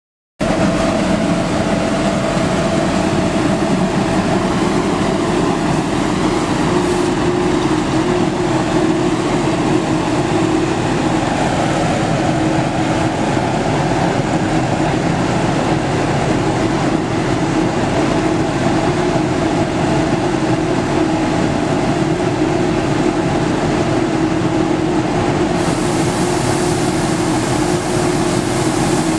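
Elgin Whirlwind MV vacuum street sweeper on a 2006 Sterling truck running, making a steady loud mechanical drone with a held whine from its diesel engines and vacuum fan.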